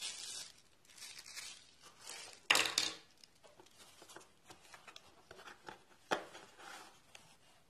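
Unpacking noises: plastic wrapping crinkling and a cardboard box being handled, with a louder rustle about two and a half seconds in and a sharp knock near the end.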